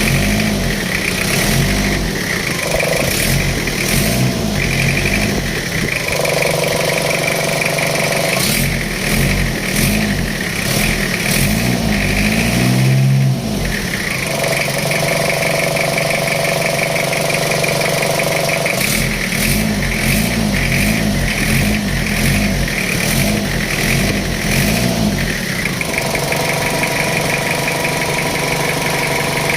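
Jeep Wrangler engine running, with the throttle blipped again and again in short rises and falls of revs in three spells, the loudest rev about halfway through.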